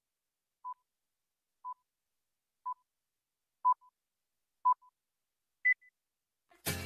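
Six short electronic beeps a second apart, the last one higher in pitch, forming a countdown lead-in on a dance backing track played over a sound system. The music comes in with a loud hit near the end.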